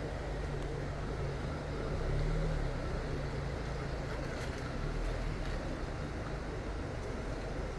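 Stream of water rushing and splashing in a steady, even flow, with a deep low rumble.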